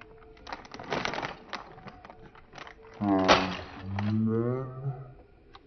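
Plastic bag of Lego parts crinkling and tearing as it is pulled open. About three seconds in come two low voice-like sounds, a short one falling in pitch and then a longer, steadier one.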